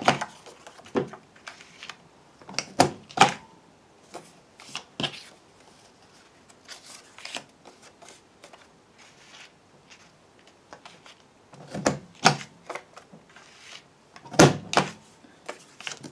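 Corner Trio Punch clicking as paper corners are punched: a series of sharp clicks, several in close pairs a few seconds apart, with paper rustling and sliding between them.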